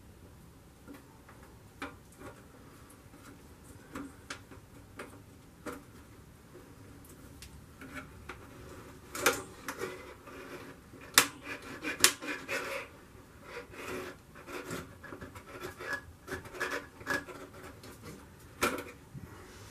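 Hands working a part back into place inside a vintage upright freezer cabinet: irregular clicks, knocks and rubbing, sparse at first and busier in the second half, with a few sharper knocks about halfway through.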